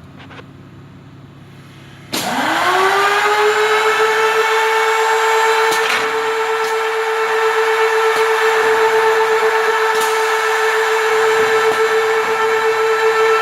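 Router motor of a 996E hinge-routing machine starting about two seconds in, spinning up quickly to a steady high whine and running on at speed. Two faint clicks come during the run.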